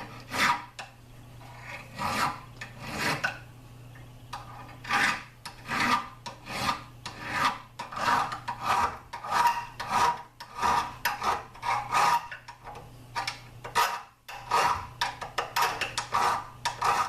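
Round file rasp stroked back and forth over the inside of a cast brass trigger guard held in a vise, smoothing out a casting mark. Rasping strokes come at about one to two a second, with short breaks about four and fourteen seconds in.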